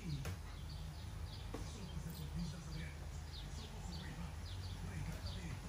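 Small birds chirping repeatedly, short falling notes scattered throughout, over a low steady hum.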